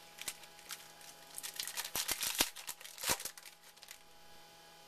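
Crinkling and clicking of 2011 Topps Finest football trading cards being handled and sorted by hand, with a dense run of crackles from about a second and a half in, lasting roughly two seconds.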